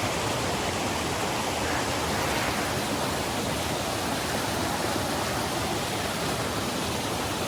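Mountain stream rushing at a stream crossing: a steady, even wash of running water.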